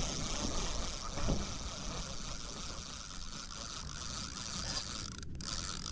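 Spinning reel being wound in, its gears giving a steady whirring. The sound briefly cuts out about five seconds in.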